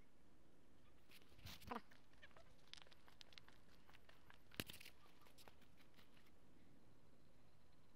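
Near silence, broken by a few faint clicks and knocks, one sharper than the rest a little past halfway.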